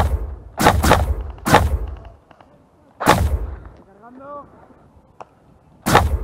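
A Specna Arms G36 blowback airsoft electric rifle firing single shots. There are about six sharp cracks, close together at first, then spaced out by a second or more, with the last one near the end.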